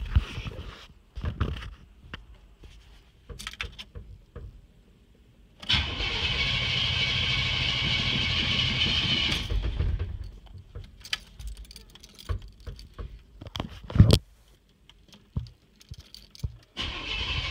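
Chevrolet K20 pickup's starter cranking the cold, hard-starting engine for about four seconds and stopping without the engine catching. Scattered clicks and one sharp knock follow as the key is worked and the gas pedal is pumped. Near the end the starter cranks again.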